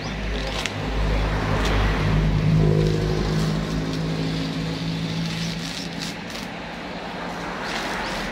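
A motor vehicle's engine running close by, swelling to its loudest two to three seconds in and then dying away, over the scratchy ripping of coconut husk fibres being torn off with a knife.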